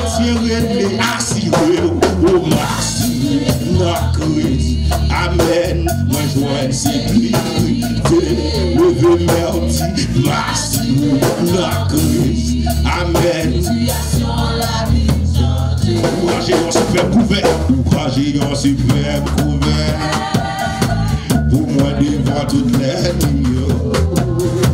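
Live church worship music: a lead singer and backing singers singing into microphones over drums and steady rhythmic percussion.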